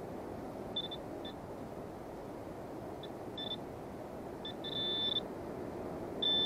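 Short, high electronic beeps from metal-detecting gear homing in on a target buried a couple of inches in the sand: a few scattered chirps, then a longer beep about five seconds in and a sharp one near the end, over a steady low rush.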